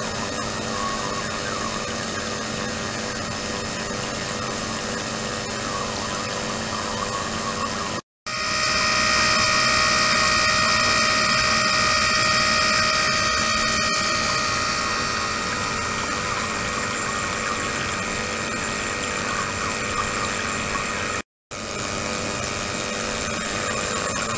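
Ultrasonic system running in water in a resin container: a steady hiss with several high, steady whining tones, the audible noise of ultrasonic cavitation. The sound cuts out briefly twice, and after the first break it is louder with stronger whines that ease off over a few seconds.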